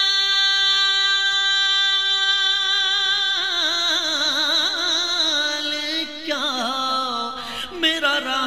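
A male naat reciter's voice holds one long steady note, then from about three seconds in moves into wavering, ornamented runs that slide downward: a wordless sung passage of an Urdu naat.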